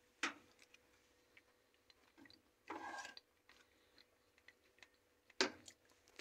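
Faint sounds of someone tasting hummus from a spoon: a small click at the start, a short mouth sound about three seconds in, and a sharper click of the spoon near the end.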